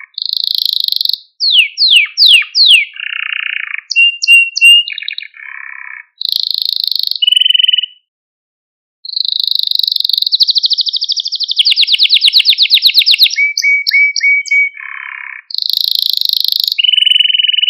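Male canary singing a varied song of rapid trills and rolls, with a run of quick downward-sliding whistles early on, a pause of about a second near the middle, and a long fast trill after it.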